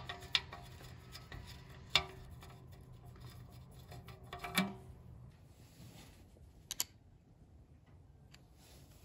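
A few sharp clicks and knocks of hands and tools working on the motorcycle's dry-sump oil tank, as the tank filler plug is taken out. The clicks come scattered over several seconds, with a quick double click near the end. A faint low hum fades out about halfway through.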